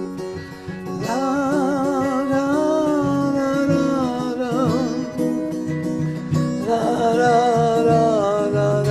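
A song: a voice singing long, held notes with vibrato over guitar accompaniment.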